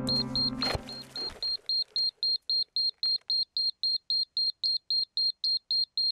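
A small electronic beeper sounding a rapid, steady string of short high beeps, about five a second. Music fades out in the first second and a half, with a brief knock about three quarters of a second in.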